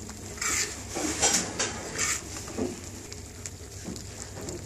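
A metal ladle stirring thick red lentil dal in an aluminium saucepan: several short, wet scraping strokes in the first two seconds, then quieter.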